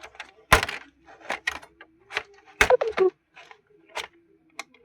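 Sharp plastic clicks and knocks as a plastic card is worked out of the seam of an HP All-in-One PC's plastic case, the loudest about half a second in and another at about two and a half seconds.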